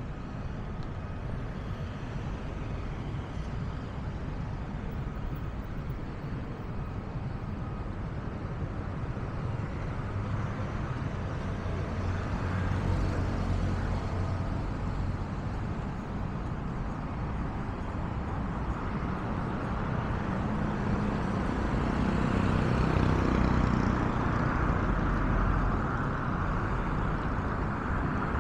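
City street traffic: a steady hum of car and engine noise, with vehicles passing that make it swell louder about halfway through and again near the end.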